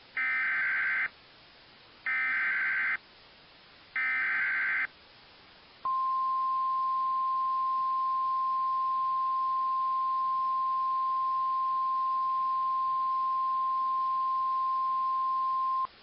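Emergency Alert System SAME header: three short bursts of warbling data tones about two seconds apart. About six seconds in comes NOAA Weather Radio's single steady warning alarm tone, held for about ten seconds. Together they activate weather radios for a severe thunderstorm warning.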